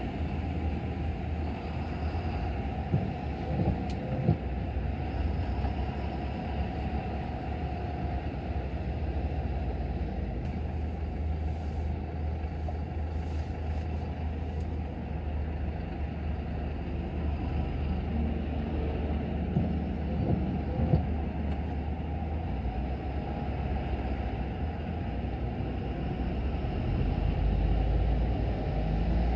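Car driving in slow city traffic on a wet road: a steady low rumble of engine and tyres, with a few faint knocks and a slight rise in loudness near the end.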